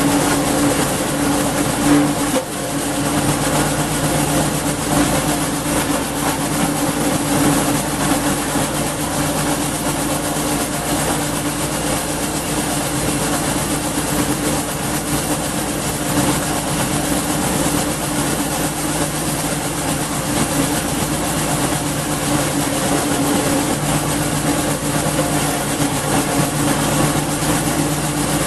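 Garden wood chipper's 5.5 HP Briggs and Stratton single-cylinder four-stroke engine running steadily at a constant speed, loud, with the chipper's whirring mechanism.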